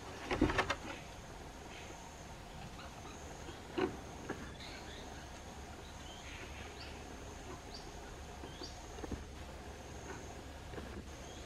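A high insect call that comes and goes, with faint short chirps, under a few knocks and rattles from a baby woolly monkey playing on a rope and wooden swing. The loudest is a quick rattling clatter about half a second in, with a single knock near four seconds.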